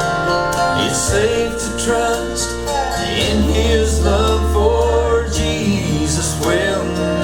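Country gospel song played back through Elac BS 133 bookshelf speakers driven by a Pioneer SX-424 stereo receiver, with a strong bass line that swells about three seconds in.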